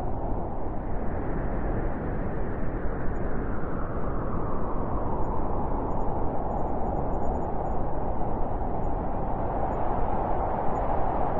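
Blizzard wind blowing steadily, a dense rushing noise with a howl that sinks in pitch and swells near the end.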